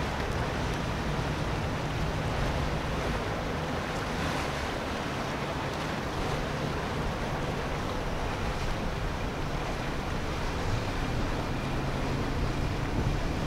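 Steady low drone of quad outboard engines on a catamaran center-console boat cruising slowly, mixed with water wash and wind noise on the microphone.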